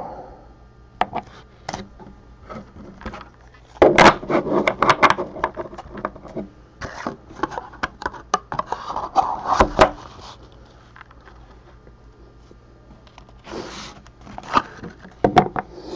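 Handling of trading cards in rigid plastic toploaders: a run of small clicks, taps and scrapes, busiest about four seconds in, around nine to ten seconds in, and again near the end.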